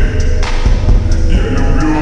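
Slowed-down trap song with added reverb: a heavy bass and kick beat under sustained synth tones.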